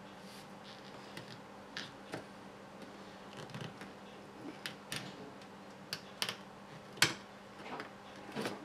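Light, irregular clicks and taps of small plastic and metal parts and screws being handled while fitting the upper suspension links of an RC crawler kit, the sharpest click about seven seconds in, over a faint steady hum.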